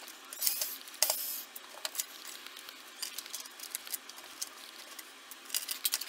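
Plastic and small metal parts of a computer keyboard clicking and clattering as it is taken apart by hand, in scattered sharp clicks with a few quick clusters.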